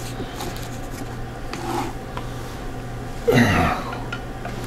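Quiet room tone with a steady low hum. A little over three seconds in, a man gives a short wordless exclamation that falls in pitch.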